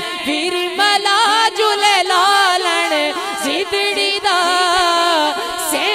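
A man singing a Sufi devotional song (manqabat) live through a microphone, in long, wavering, drawn-out phrases with no clear words.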